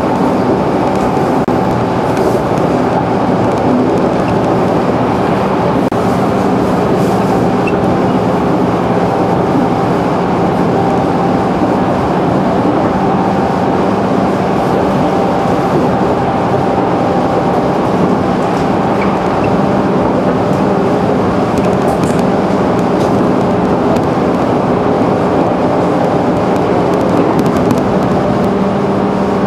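JR 211 series electric train running at a steady speed, heard from inside the passenger car: an even rumble of wheels on rail with a steady hum underneath.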